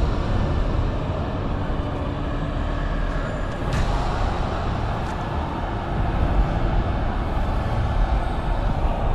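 Film soundtrack ambience of a burning wasteland: a dense, steady low rumble with a windy hiss over it and a few faint held tones drifting through.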